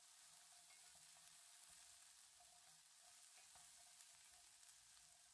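Faint sizzling of sliced carrots and peas frying in butter in a pan: an even, quiet hiss with a few light ticks.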